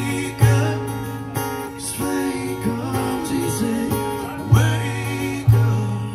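Live acoustic band: a strummed acoustic guitar and a man singing, with deep cajon hits every second or two.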